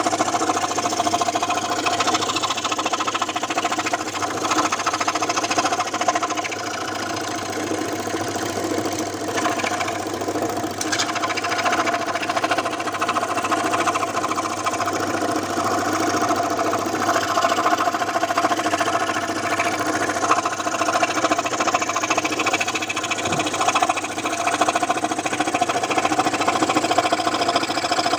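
Electric scroll saw running steadily, its blade moving rapidly up and down, a little quieter for a few seconds in the first third.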